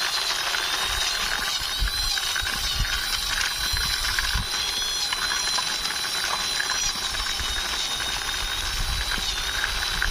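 Toy army jeep pushed along by hand, its wheels and gears whirring with a steady rattle and a wavering high whine.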